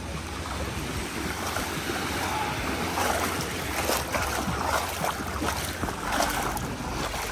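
Small lake waves washing onto a sandy beach, with wind buffeting the microphone.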